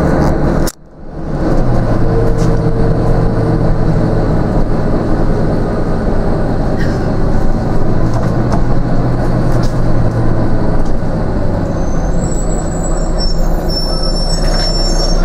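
Volvo B9TL double-decker bus running, heard from inside the saloon: a steady low engine hum with road noise. The sound drops out sharply for about half a second, about a second in, then returns. Faint high squeaks come in near the end.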